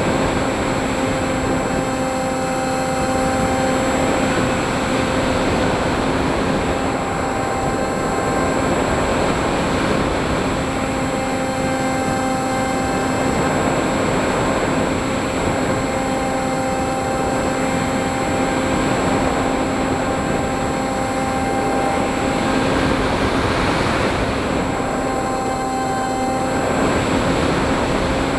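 FPV drone's electric motors and propellers running with a steady hum, several even overtones over a rush of air noise, swelling and easing slightly at times.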